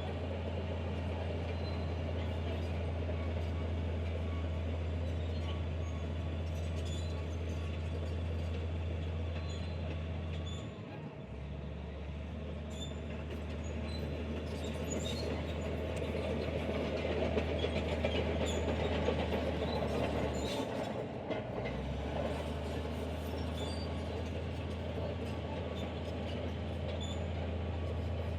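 Bulldozer's diesel engine running under load with its steel tracks clanking and squeaking. The low engine drone dips briefly twice, about ten seconds apart.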